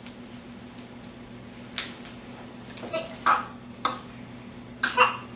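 Five sharp slaps or snaps, spaced unevenly about a second apart and loudest near the end, over a steady low hum.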